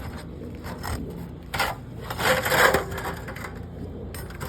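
Old tar-stuck asphalt 3-tab shingles cracking and tearing as a roof vent is pried loose: a short crack about a second and a half in, then a louder tearing crackle.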